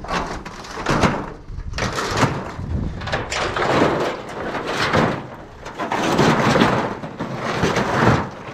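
Repeated rustling and scraping, in swells about a second apart, of cover boards and debris being handled and shifted.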